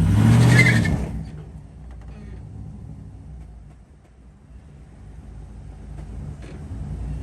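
Car engine revved hard at the start, then dropping back to a lower steady run and building again near the end: a burnout attempt on a car whose transmission is slipping.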